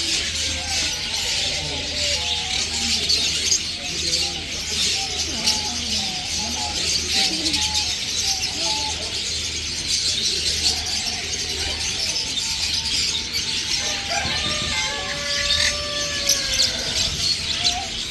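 Many small caged birds chirping all at once in a dense, unbroken chorus of rapid high chirps.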